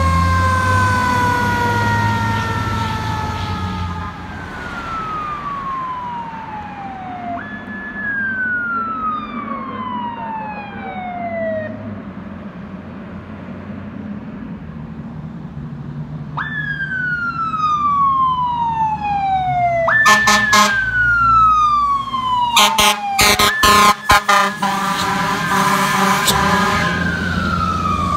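Fire engine's siren sounding in repeated falling sweeps, each jumping up suddenly and gliding down over a few seconds. Near the end several loud, choppy air horn blasts, the loudest sounds here, come over the siren and the low rumble of the truck's engine.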